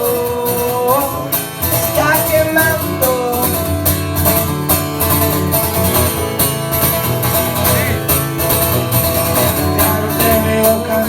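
A live band playing an instrumental passage of a song: plucked guitar lines with some bending notes over a steady drum beat.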